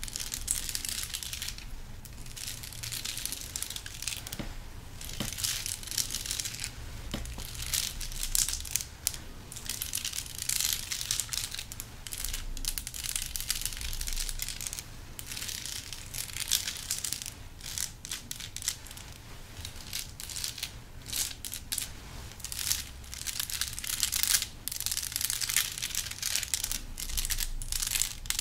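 A crown handled and scratched close to the microphone as an ASMR trigger: a continuous crackly, crinkly rustle in uneven bursts, full of small clicks.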